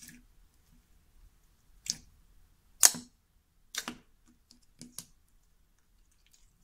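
A foam-chunk slime being pressed and played with, giving a handful of sharp, irregular clicks and pops, the loudest about three seconds in.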